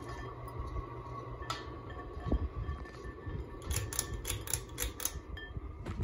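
Celestique ceiling fan running, a steady low motor hum with a thin steady tone above it. Past the middle comes a quick run of about seven sharp clicks.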